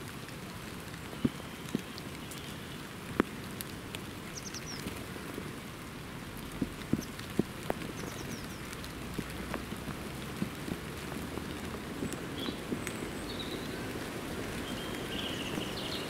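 Steady light rain pattering on a wet surface, with heavier drips landing sharply every second or two. Faint high bird chirps come a few times.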